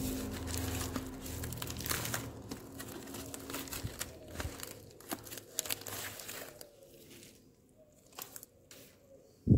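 Plastic bubble mailer crinkling and tearing as it is pulled open by hand, a dense run of crackles that thins to a few scattered rustles after about seven seconds. It ends in a short, loud dull thump.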